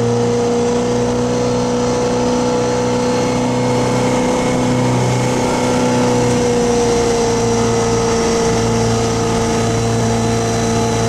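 Motorboat engine running steadily at speed while towing a water skier, a constant drone that drops slightly in pitch about seven seconds in.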